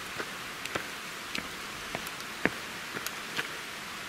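Footsteps on a stone-paved path, short sharp steps about two a second, over a steady hiss.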